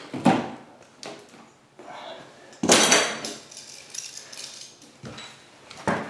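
Wire strippers clicking and snipping on electrical wire as it is cut and stripped, with a louder metallic clatter of handled tools about two and a half seconds in.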